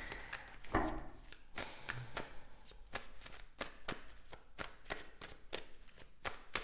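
A deck of tarot cards being shuffled by hand, the cards slapping against each other in quick, irregular clicks, several a second.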